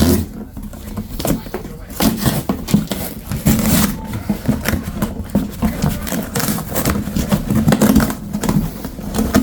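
A parcel being opened by hand: irregular rustling, scraping and tapping of cardboard and packaging.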